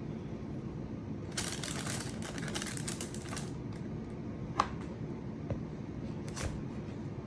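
Kitchen handling noises while cookie dough is portioned onto a baking pan: about two seconds of crinkling and rustling, then two sharp clicks a couple of seconds apart, over a steady low hum.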